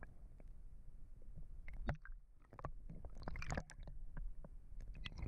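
Muffled water sound heard through a submerged camera housing: a low rumble with scattered soft clicks and pops.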